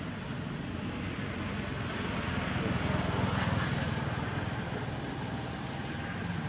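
Steady low engine-like rumble, swelling a little about halfway through, with a faint steady high-pitched tone above it.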